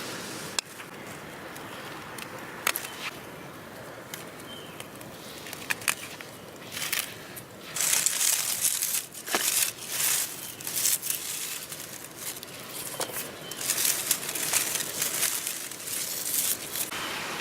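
Dry perennial stems and dead foliage crackling and rustling as they are grabbed and pulled, with a few sharp snips of pruning shears in the first few seconds. The crackling is loud and comes in dense bursts over the second half.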